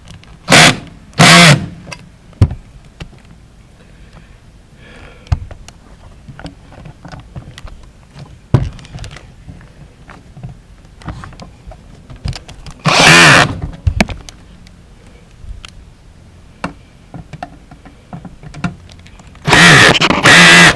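Power drill run in short bursts, four of them, each spinning up and cutting off, with scattered knocks and clicks of handling between.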